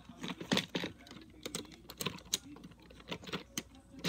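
Lego plastic pieces clicking and clattering as roof parts are pressed onto a Lego train carriage: a run of short, irregular clicks.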